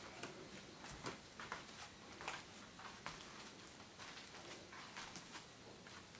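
Faint, irregular clicks and soft taps, a few each second, from footsteps and movement on bare wooden floorboards.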